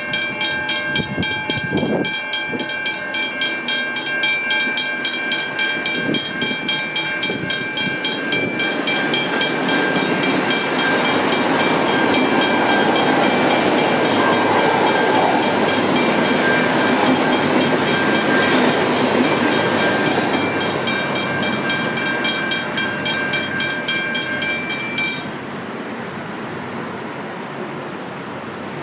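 Westinghouse hybrid level-crossing bell ringing with rapid, evenly repeated strokes while a train rumbles through the crossing in the middle. The bell cuts off suddenly about 25 seconds in, leaving a steady hiss.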